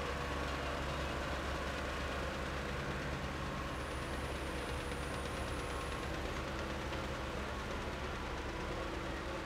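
Caterpillar wheel loader's diesel engine running steadily as the machine moves a full bucket of dirt, with a faint high whine for a couple of seconds midway.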